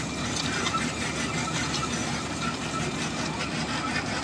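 Bitumen hot-mix plant machinery running, a steady mechanical drone with no breaks or changes.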